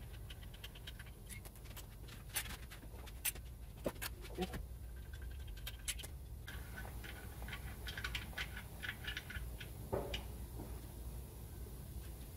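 Faint, scattered light clicks and scraping as gloved hands and tools work on an outboard motor's lower gear housing.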